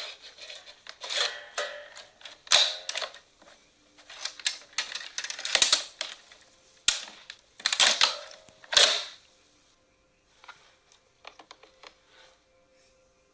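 Hard plastic parts of a Play-Doh Transformers Autobot Workshop playset being handled: irregular clicks and clacks with several sharp snaps and short scraping rattles, thinning to a few light clicks in the last few seconds.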